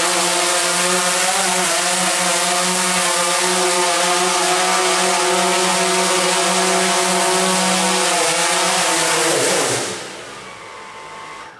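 DJI Phantom 3 Professional quadcopter's brushless motors and propellers running with a steady whir, then spinning down and stopping about nine and a half seconds in.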